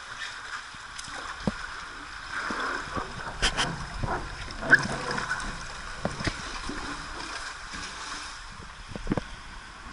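Water rushing steadily down a water-park slide, with scattered splashes and knocks; the sharpest comes a little before the middle, and a short cluster follows near the end.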